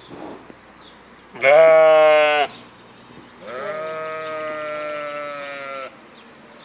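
Adult sheep bleating twice: a short loud bleat about a second and a half in, then a longer, quieter bleat held for about two and a half seconds.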